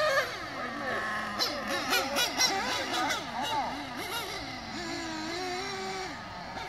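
Small nitro glow engines of Serpent RC cars revving in quick throttle blips, their high-pitched note swinging up and down again and again, with a few sharp crackles about two seconds in.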